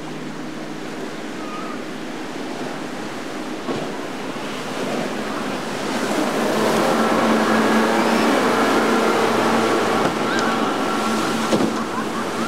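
Churning, rushing water as motorboats ride through rough canal waves, with a bow rider's engine running at a steady pitch and growing louder from about six seconds in as the boat passes close, then easing off near the end.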